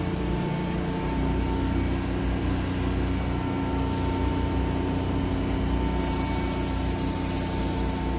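A Seoul Line 3 GEC chopper-controlled electric train standing at the platform with its doors open, its onboard equipment humming steadily with a high steady whine. About six seconds in comes a two-second hiss of air.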